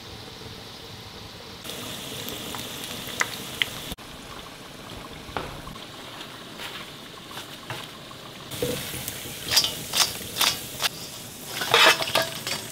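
Steady hiss of a pot of meatballs simmering over a low flame. Near the end comes a run of sharp, crisp clicks and taps as fried wontons are tipped from a slotted metal spoon onto a paper-lined steel tray.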